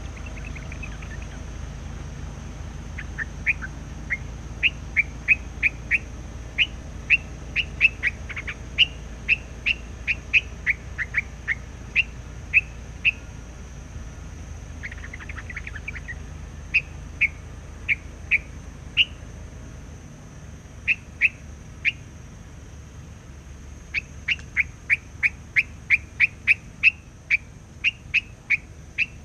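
Hoành hoạch (trao trảo) decoy bird singing loudly and without pause: rapid runs of short, sharp, whistled notes, a few a second, in bursts with brief breaks between them.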